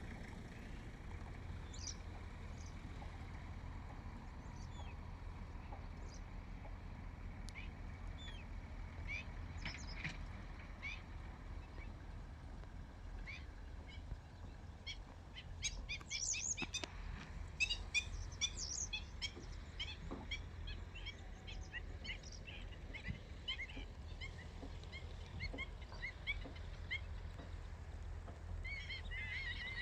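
Birds chirping: short high chirps, sparse at first, coming more often from about halfway and thickest in a quick flurry near the end, over a steady low rumble.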